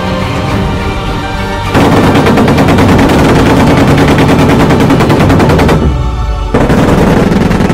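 Gepard anti-aircraft tank firing its twin 35 mm autocannons: a long burst of rapid fire starting a couple of seconds in, a brief pause, then a shorter second burst. Music plays before the firing starts.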